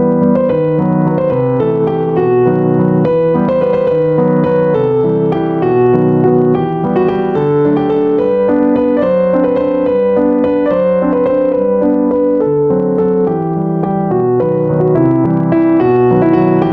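Background music: a piano piece playing a steady melody over a bass line.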